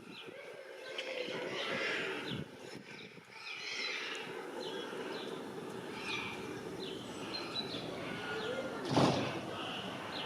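Small birds chirping over and over in short, high notes, with a brief louder noise about nine seconds in.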